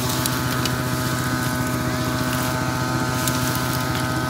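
A small engine running steadily at an even speed, with a few light snaps and rustles from dry branches being handled.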